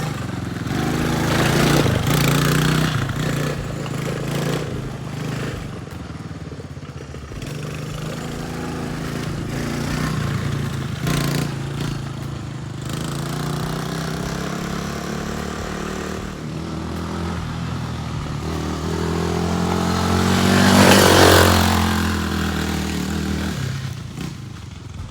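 Four-wheeler (ATV) engine running after a carburetor replacement and tune-up, revving up and down with its pitch rising and falling. It is loudest about 21 seconds in, then drops away near the end.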